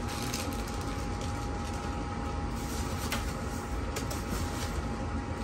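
Plastic packaging rustling and crinkling as foam RC plane parts in bags are handled, a few faint crackles over a steady background hum with a faint constant tone.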